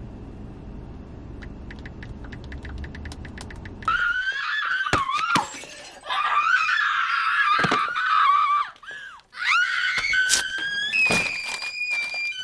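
Quick tapping of typing on a smartphone over a low car-cabin rumble. About four seconds in, an abrupt switch to a loud, high-pitched wavering wail with several sharp knocks and clacks.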